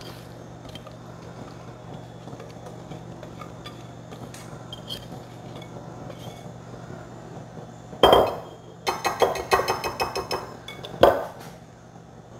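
A wire whisk scraping and knocking against a ceramic mixing bowl while batter is poured out: faint clicks at first, then about eight seconds in a loud knock, a quick run of metal-on-ceramic clinks, and another knock about three seconds later. A steady low hum runs underneath.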